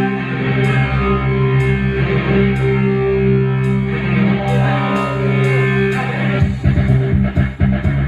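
Technics SX-KN7000 arranger keyboard playing a song intro in a guitar voice over held chords; about six and a half seconds in, a choppier rhythmic accompaniment starts.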